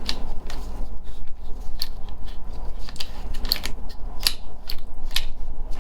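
Irregular light clicks and taps, about two a second, as the small plastic and metal parts of a car power door lock unit are handled and fitted together during disassembly. A steady low hum runs underneath.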